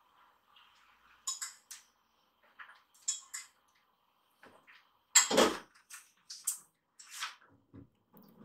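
Kittens pawing and clawing at a wooden-framed frosted-glass sliding door: scattered light clicks and rattles, with one loud bump about five seconds in.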